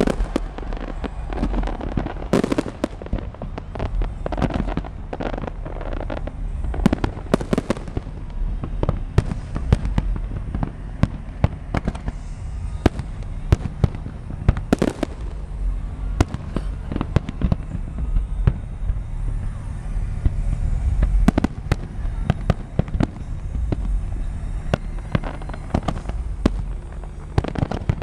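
Fireworks display: a rapid, irregular string of sharp bangs and pops over a continuous low rumble.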